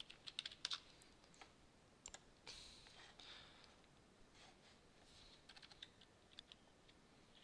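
Faint computer keyboard typing and clicking: short runs of key presses and a few single clicks, with gaps between.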